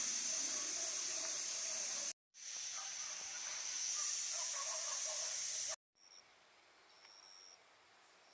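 Steady hiss of compressed air, as when a motorcycle tire is being inflated after a tire change, in two stretches broken by a short gap about two seconds in, with a few faint squeaks. It stops abruptly near the end, leaving a quieter background with short high beeping tones.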